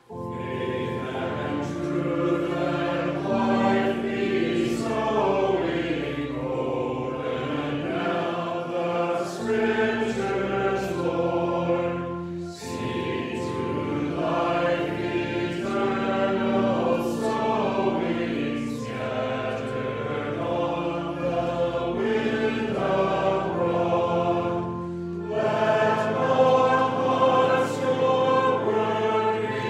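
A hymn sung by many voices together, with sustained instrumental accompaniment. The chords change every second or two, and there are short breaks between lines about 12 and 25 seconds in.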